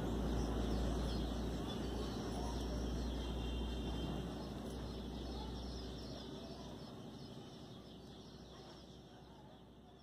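Outdoor background noise with a steady low rumble and birds chirping faintly, the whole fading out gradually over the second half.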